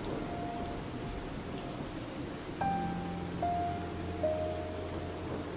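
Steady rainfall with soft, slow piano music over it. A new chord with a low bass note enters about two and a half seconds in, followed by two more single held notes.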